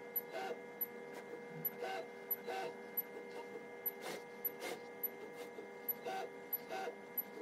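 Coordinate measuring machine running an automatic inspection: a steady whine from its drives with sharp clicks, roughly one to two a second at uneven spacing, as its Renishaw touch probe takes points on the part.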